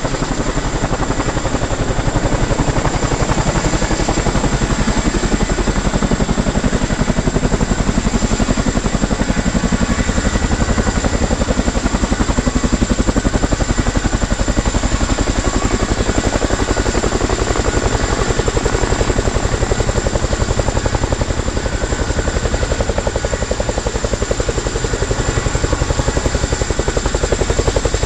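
Boeing CH-47 Chinook tandem-rotor, twin-turboshaft helicopter running steadily: a rapid, even rotor beat with a steady high whine over it.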